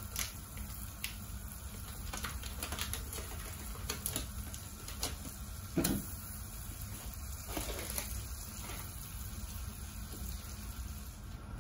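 Butter melting in a saucepan on a gas burner with a little water left in it: faint sizzling with scattered small crackles and pops over a steady low hum. About halfway through there is a single thump as a second stick of butter drops into the pan.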